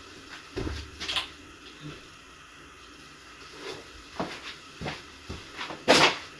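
Scattered knocks and clicks of a cat being set down on a glass tabletop and stepping about on it. There is a dull thump about half a second in, a few light ticks later on, and a sharp clack near the end.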